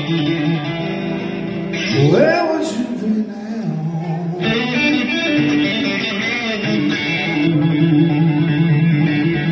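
Live rock band playing, led by electric guitar over bass, keyboard and drums. About two seconds in there is a rising swoop in pitch.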